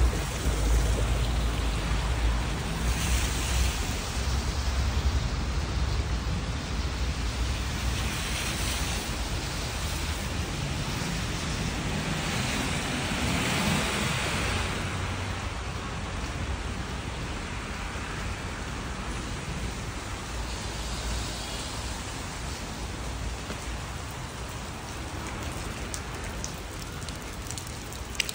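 Steady rain falling on wet pavement, an even hiss that swells a few times and slowly grows quieter. A low rumble sits under it for the first few seconds and then fades.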